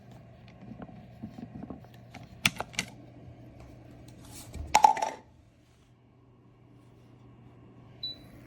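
Several sharp clicks and knocks, then a louder clatter about five seconds in, and a short high beep near the end, over a low steady hum.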